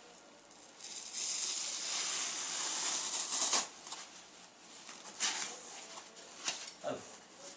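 Knife blade cutting through a thick foam sponge sheet: a long hissing stroke lasting about two and a half seconds that stops sharply, then a few shorter cutting strokes near the end.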